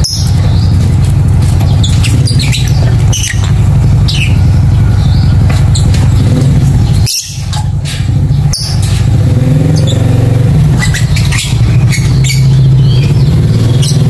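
Caged Fischer's lovebird chirping in quick, shrill bursts of short calls, over a loud steady low hum. The sound drops out briefly about seven seconds in.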